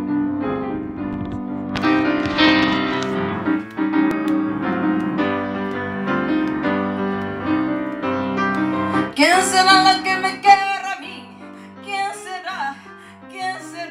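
Piano playing a song introduction in steady chords, with a woman's singing voice coming in over it about nine seconds in.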